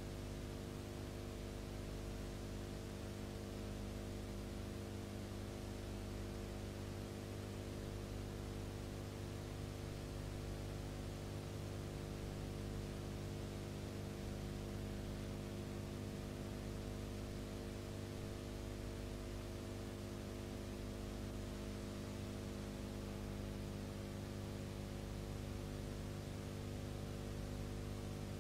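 Steady electrical hum with a stack of overtones over constant hiss: tape or transfer noise on a silent film's soundtrack, with no sound of the scene itself.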